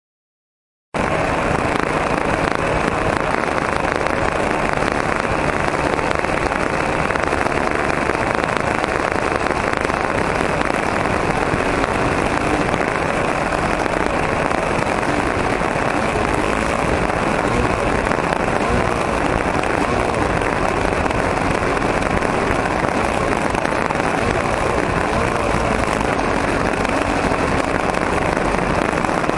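OS .40 glow engine of an RC model plane running at a steady speed, heard as a dense, rough buzz through the small microphone of a camera mounted under the plane. It cuts in about a second in and holds an even level.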